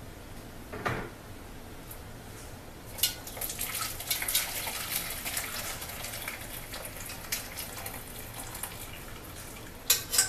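Turkey stock poured from a stainless steel skillet through a mesh strainer into a bowl, splashing steadily for about six seconds as the stock is strained. A knock sounds about a second in, and two sharp clicks come near the end.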